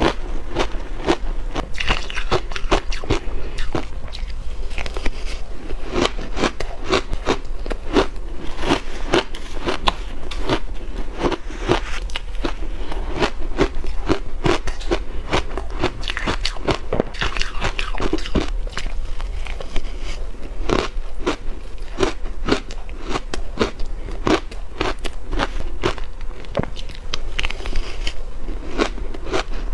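Close-miked biting and chewing of shaved blender ice topped with milk powder: a continuous run of crisp, rapid crunches and crackles.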